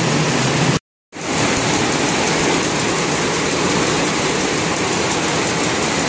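Many rapier looms running together in a weaving shed, making a dense, steady mechanical din. The sound cuts out completely for a split second about a second in.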